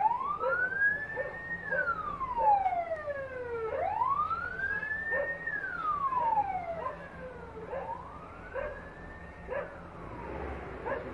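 Ambulance siren wailing: a slow rise in pitch, then a longer fall, repeating three times about four seconds apart, fading somewhat in the last cycle. A dog barks in short repeated yaps underneath.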